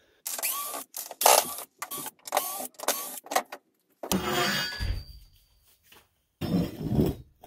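Sharp clatters and knocks of a bent metal fender strip and its wooden bending form being handled and lifted on a workbench, in quick irregular strokes, then two longer stretches of scraping and rattling.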